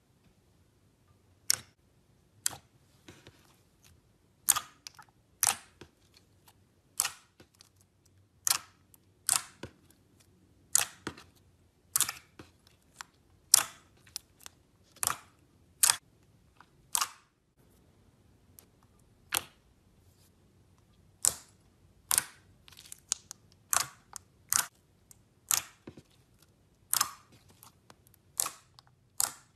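Glossy white slime being kneaded and folded by hand, trapped air pockets popping with sharp clicks about once a second, with a lull of a few seconds just past the middle.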